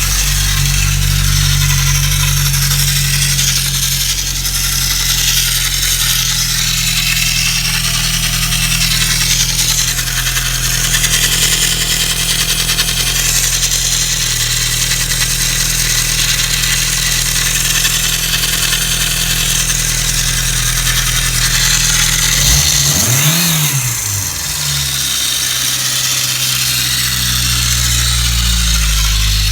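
Freshly overhauled engine running with a knock that appeared after the rebuild, its cause unclear to the owner. It is revved once briefly about two-thirds of the way through, the pitch rising and falling, then settles back to a steady run.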